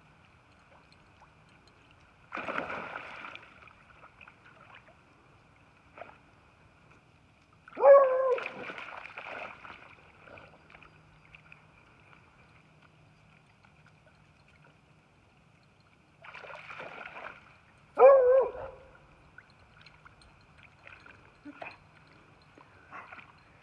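Dog splashing and pouncing in shallow water while trying to catch fish, with two loud short barks, about eight and eighteen seconds in.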